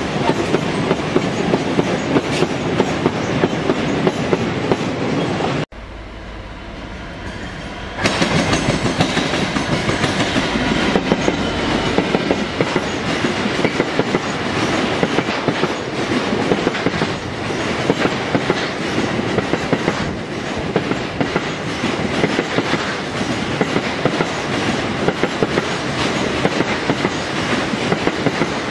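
Freight wagons rolling past at speed: steel wheels clattering over the rail joints in a rapid, steady clickety-clack. A train of tank wagons cuts off abruptly about six seconds in, leaving a quieter rumble for two seconds, then a train of loaded car-carrier wagons passes just as loudly.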